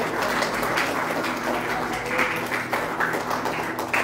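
Congregation applauding: many hands clapping at once in a steady clatter.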